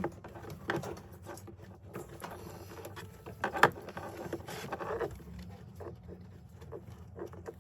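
Scattered small clicks, taps and scratchy rustles of hands working on an opened Bluetooth speaker's circuit board and plastic wire connectors, with the sharpest click about three and a half seconds in.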